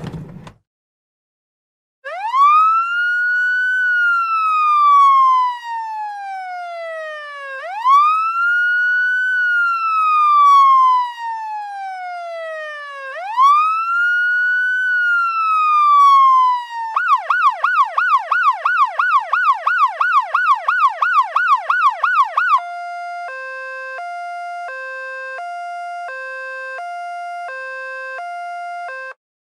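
Electronic ambulance siren cycling through its modes. First come three slow wails, each rising and then falling over about five seconds. Then a fast yelp of about four sweeps a second, then a two-tone hi-lo alternation, which stops shortly before the end.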